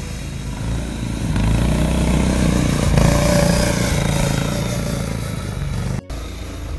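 Arctic Cat 120 youth snowmobile engine running as the sled rides up and past, getting louder to its peak about three seconds in, then easing off as it pulls away; a brief break in the sound about six seconds in.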